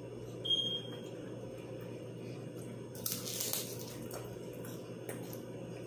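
A crisp crunch of a bite into a fried cheese wonton about three seconds in, over a steady low hum. A brief high squeak about half a second in is the loudest moment.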